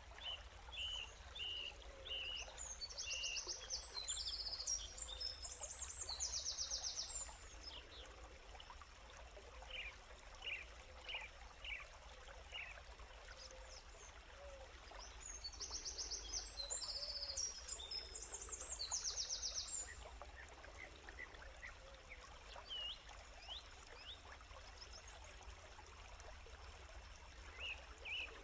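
Birdsong: a phrase of short chirps running into fast, high trills, sung twice about twelve seconds apart, over steady faint background noise.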